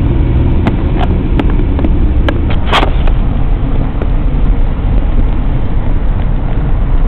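Steady low rumble of a car's engine and tyres on the highway, heard from inside the cabin, with a few light clicks scattered through it.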